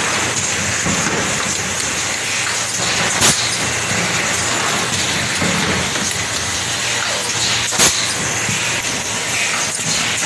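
KEENPRO EM02MC two-cavity PET stretch blow molding machine running: a steady mechanical and air hiss, with a sharp loud burst twice, about four and a half seconds apart.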